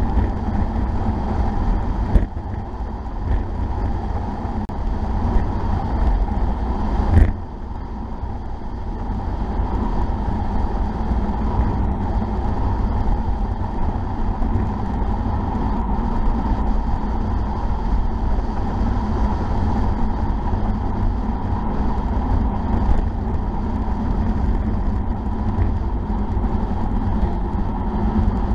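Wind rushing over a bike-mounted camera's microphone during a fast bicycle descent, with steady tyre rumble on the tarmac. A sharp knock about seven seconds in, and a smaller click about two seconds in.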